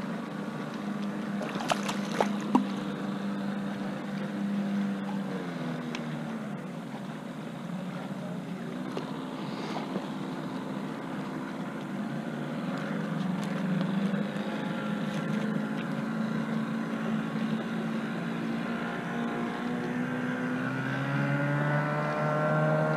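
Motorboat engine running on the water, a steady droning tone whose pitch dips about five seconds in and rises near the end as it grows louder. There are a few sharp clicks about two seconds in.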